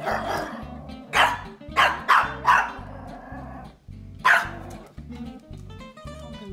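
Pomeranians barking in sharp high yaps: one at the start, one about a second in, three in quick succession around two seconds in, and a last one about four seconds in, over background music with a steady beat.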